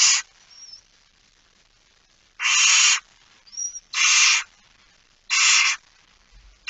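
Barn owls in a nest box giving harsh rasping hisses, each about half a second long, repeated roughly every one and a half seconds. Faint high squeaks come between them.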